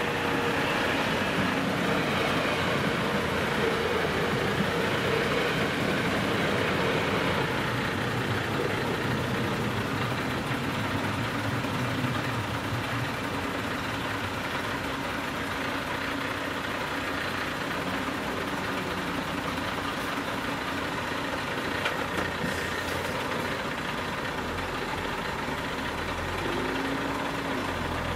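Level-crossing electronic warning bell ringing steadily with the barriers down, over road vehicles idling while they wait. Near the end a car engine comes up low as traffic begins to move.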